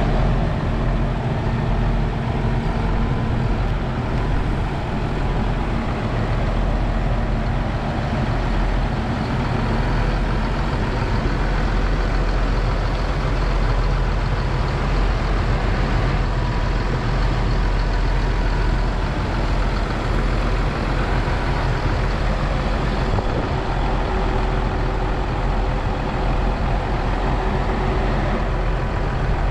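Heavy vehicle engine running steadily at an even pitch, with a low hum.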